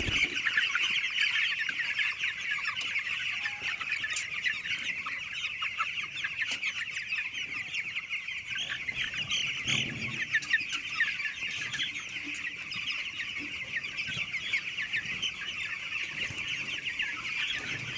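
A large flock of farm chickens calling continuously: a dense, high-pitched chorus of many birds at once.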